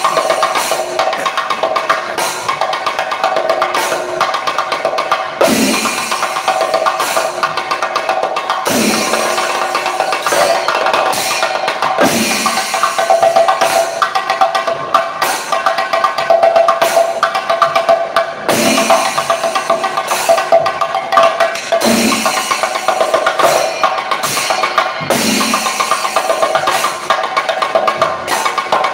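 Chenda melam: a group of Kerala chenda drums beaten with sticks in a fast, dense rhythm, with a steady ringing tone underneath and heavy accented strokes every few seconds.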